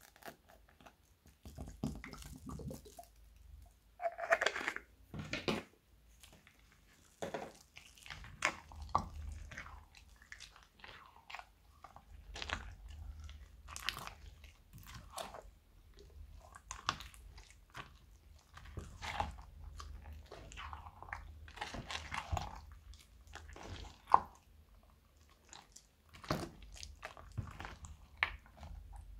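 A spatula stirring wet, soapy slime thick with foam beads and plastic beads in a bowl: irregular squelching and crunchy crackling, some strokes louder than others. The slime is forming as the borax activator is stirred through the soapy water.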